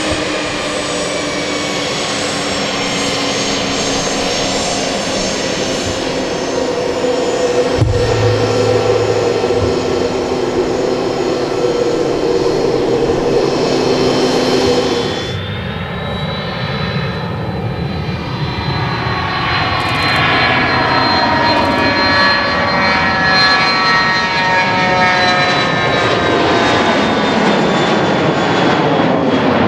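Twin turbofan engines of a Cessna Citation Sovereign business jet at takeoff power: a steady, high jet whine over a rushing roar through the takeoff roll. About halfway through, the sound changes abruptly, and the climbing jet's whine tones slide down in pitch as it moves away.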